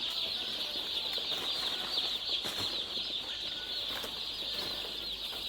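Many young chicks peeping together in a dense, continuous high-pitched chorus, with a few faint clicks underneath.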